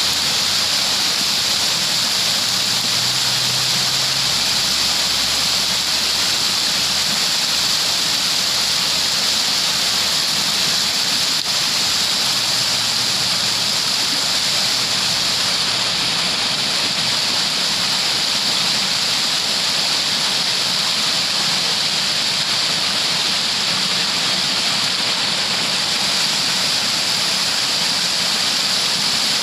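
Rushing water running steadily, an even hiss with no breaks.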